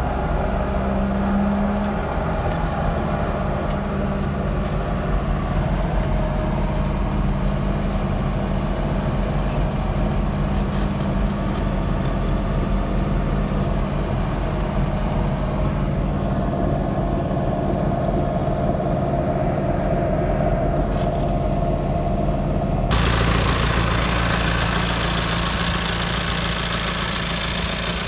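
John Deere 6330 tractor's diesel engine running steadily, heard inside the closed cab while driving on the road. About 23 seconds in, it cuts to the same engine heard from outside, brighter and more open.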